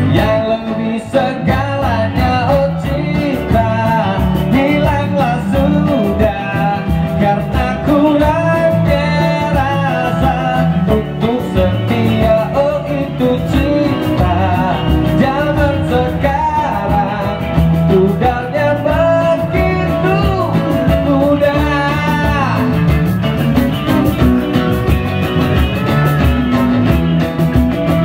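Live acoustic band playing a mid-tempo pop love song: a strummed acoustic guitar, a cajon keeping the beat and an electric guitar, with a male lead voice singing over them.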